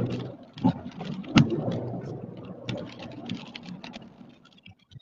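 Car driving on a wet road, heard from inside the cabin: steady tyre and road hiss with scattered clicks and knocks, one sharp knock about a second and a half in.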